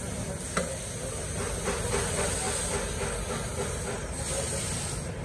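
Compressed-air paint spray gun hissing steadily while spraying, over a low rumble, with one short click about half a second in.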